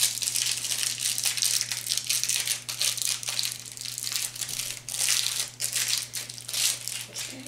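Plastic packaging crinkling and rustling as it is handled and pulled at by hand, in irregular bursts that thin out near the end.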